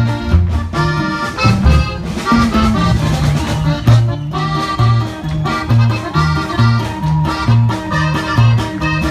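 Accordion-led Mexican folk dance music in a polka rhythm, with a bass line stepping between notes on each beat.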